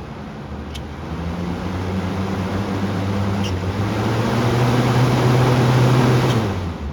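Lakewood model 227 box fan running, its motor hum rising in pitch and growing louder over several seconds as the fan speeds up, with two faint clicks along the way. Near the end the power is cut and the fan begins to spin down.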